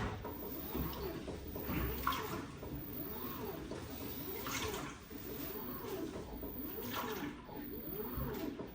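LG WT16WV6 washing machine with water and towels sloshing in the tub over a steady low hum, a swish coming about every two and a half seconds.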